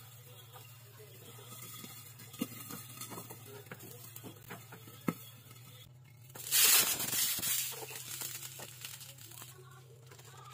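Egg frying in a covered frying pan, crackling with scattered small pops. About six and a half seconds in, a loud hissing burst of sizzle fades over about a second as the lid is lifted off.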